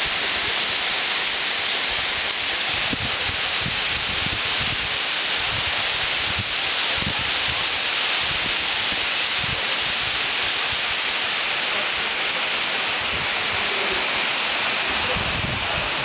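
Waterfall pouring over rocks: a steady, loud rush of falling water.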